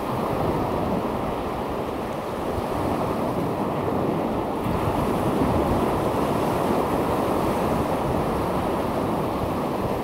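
Steady, muffled rush of sea surf breaking on the beach, mixed with wind buffeting the microphone.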